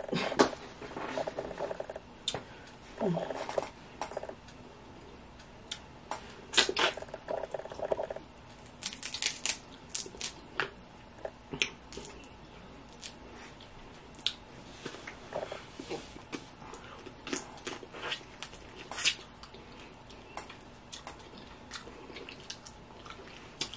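Cooked blue crab shells cracking and clicking irregularly as the crabs are picked apart by hand, with wet chewing between.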